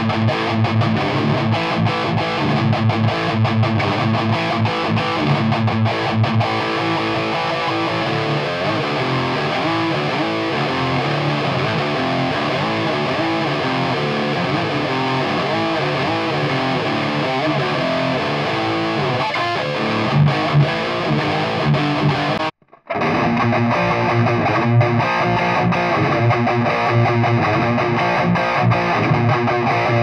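Distorted electric guitar riffing fast through a Marshall 4x12 cabinet loaded with its old Celestion Custom speakers. About 22 seconds in the sound cuts out for a moment, then another distorted guitar passage starts with less treble.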